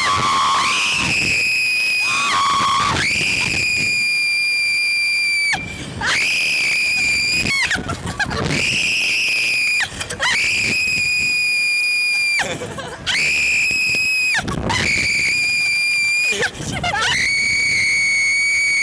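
Teenage riders on a Slingshot reverse-bungee ride screaming: a run of about eight long, high, held screams, each about two seconds, with short breaths between them.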